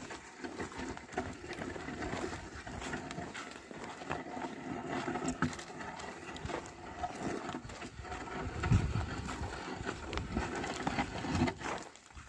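Oxen ploughing a field: scattered hoof steps, knocks and rustling, with a heavier low thud about nine seconds in.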